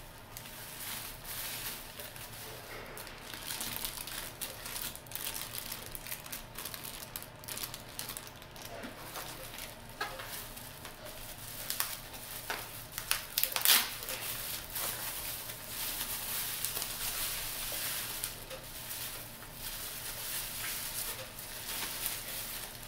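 Plastic bubble wrap crinkling and rustling as it is handled and pulled apart, with a few louder sharp crackles around the middle.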